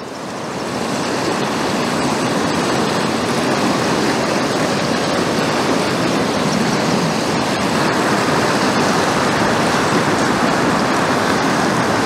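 Fast river rapids rushing steadily, fading in over the first second or two.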